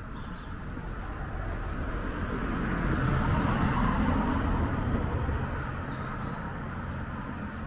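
A road vehicle passing close by on the street, its tyre and engine noise swelling to a peak about three to four seconds in and then fading, over a low steady traffic hum.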